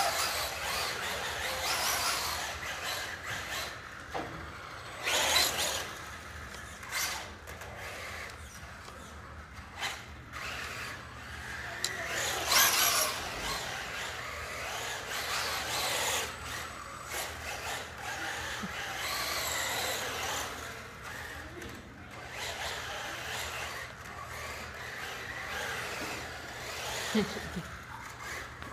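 Traxxas Rustler VXL radio-controlled truck's brushless electric motor and tyres on a polished tile floor, speeding up and slowing down in repeated bursts. The loudest runs come about five and twelve and a half seconds in.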